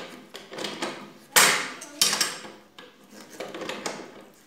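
A screw being tightened by hand into a wooden chair frame, turn after turn, giving a series of short knocks and scrapes with the loudest about one and a half and two seconds in. The screw is a washing-machine transit bolt biting into the wood to stop a loose chair joint from wobbling.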